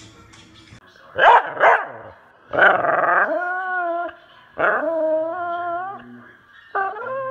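Bulldog howling with its head raised: two short sharp yaps about a second in, then long drawn-out howls, two full ones and a third starting near the end.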